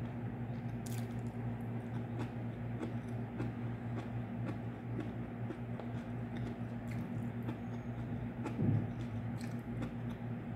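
A person chewing food with small wet, squishy mouth sounds and light clicks, over a steady low hum. There is one soft low thump near the end.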